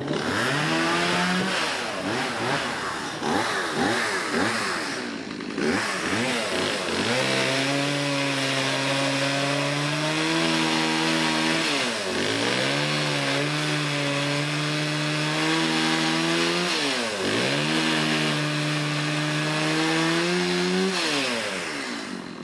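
Stihl MS180C two-stroke chainsaw, fitted with a larger bar and a wider, heavier chain, revving up and down a few times and then held at high revs through long cuts into wood. The engine pitch sags and recovers twice as it works.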